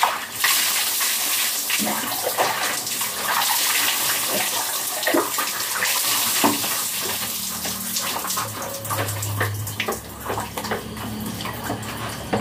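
Water poured again and again from a plastic dipper over a person's head and body, splashing and running onto the floor: a dipper (tabo) bath.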